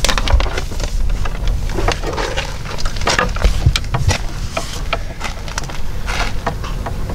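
Red electrical wire being pulled off a spool and handled, with scattered clicks and rustles over a steady low rumble.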